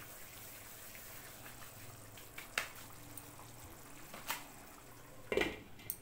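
Milky gravy in a kadhai simmering with a soft, steady bubbling hiss. A few sharp clicks break through; the loudest comes near the end, as a glass lid is set down on the pan.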